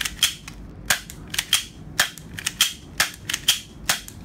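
Slide of a Gunstorm Beretta M92 spring-powered airsoft pistol being racked back and released repeatedly, giving sharp plastic clacks about two a second, some in close pairs.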